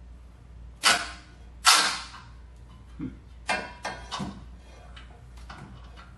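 Sharp metallic clanks from tools and fittings on an exhaust pipe's flange bolts while the 19 mm nuts are fitted: two loud ones about a second in and near two seconds, then a few lighter clanks between three and four and a half seconds.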